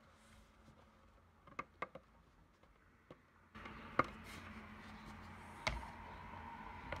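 Plastic hard-shell laptop case being pressed and snapped onto a MacBook Pro: sharp clicks and knocks, a pair about a second and a half in and the loudest about four seconds in. From about halfway through there is a steady rubbing noise of hands handling the case.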